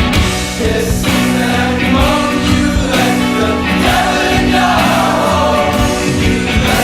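Song with a steady beat and backing vocals, played loud.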